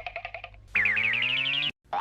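Anime-style cartoon sound effects: a quick rattle of short ticks, then a buzzy, warbling pitched tone that holds for about a second and cuts off suddenly.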